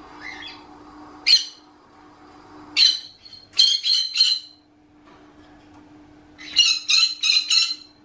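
Green-cheeked conure screeching loudly: a single harsh call about a second in, a cluster of several around three to four seconds in, then a quick run of about five screeches near the end. A faint steady low hum sits underneath.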